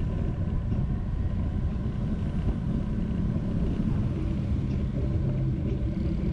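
Steady low rumble of city street traffic, engines and tyres running without a break.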